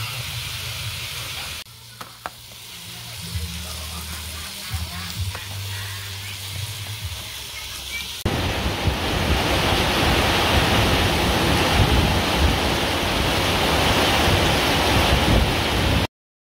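Pot of soup with herb leaves boiling hard on a stove: a steady bubbling, rushing hiss that gets much louder about eight seconds in and cuts off suddenly just before the end.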